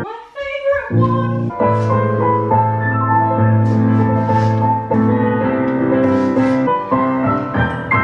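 Piano music with long held notes.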